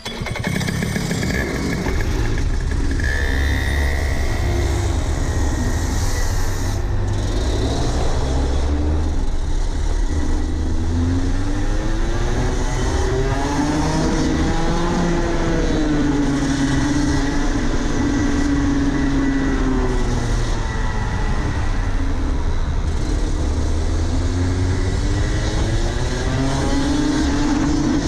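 Rotax Max Senior 125 cc two-stroke kart engine under load, pulling away hard and then running at speed, its pitch rising and falling with engine speed through the corners.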